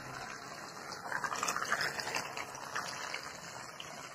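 Water splashing and churning as a small homemade battery-powered toy boat made of plastic bottles is driven across the water, louder for about a second and a half near the middle.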